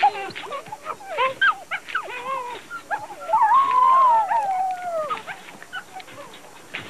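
Wolves whining and yelping in an excited greeting: many short, high, wavering whimpers, with one longer whine about halfway through that rises and then slowly falls.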